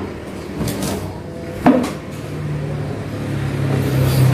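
An engine running with a low hum that grows steadily louder over the last two seconds, with a single brief knock about a second and a half in.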